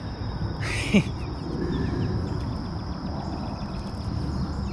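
Magnet-fishing rope being hauled up hand over hand across a concrete bridge parapet, with a brief scrape about a second in. A steady high-pitched insect drone and a low rumble run underneath.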